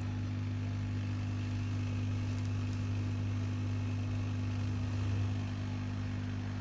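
A steady low hum from running equipment, even and unchanging throughout.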